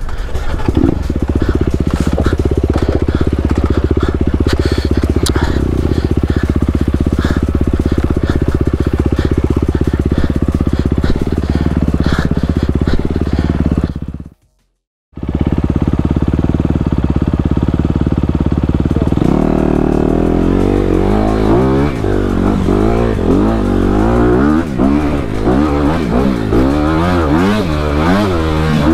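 Honda CRF250RX's 250 cc single-cylinder four-stroke engine running hard on a dirt trail, steady at first. The sound breaks off for about a second midway. From about two-thirds of the way in, the revs rise and fall over and over as the bike accelerates and shifts.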